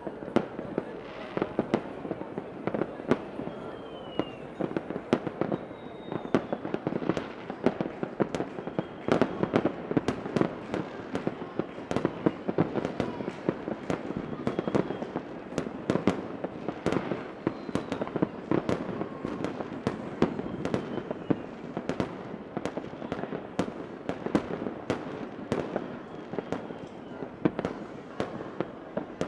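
Fireworks display going off continuously: dense, irregular bangs and crackles, with a few faint whistles sliding in pitch now and then.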